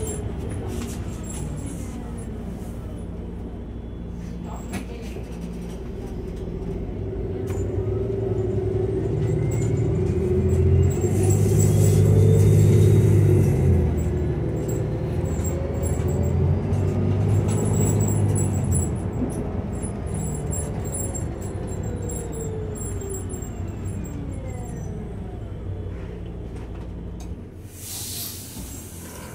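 Cabin sound of a New Flyer Xcelsior XDE40 diesel-electric hybrid bus driving between stops. A low engine drone runs under an electric drive whine that rises in pitch as the bus gathers speed and falls again as it slows. Near the end there is a short hiss of air as the bus comes to a stop.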